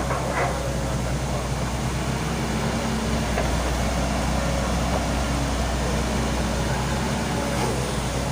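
Volvo excavator's diesel engine running steadily under work, with two short knocks right at the start.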